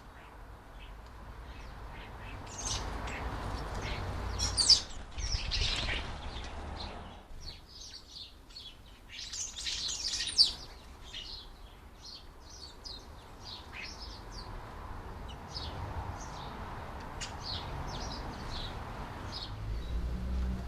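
Small garden birds chirping and twittering in many short, high calls, over a low background rumble. Two brief sharp sounds stand out, about five and ten seconds in.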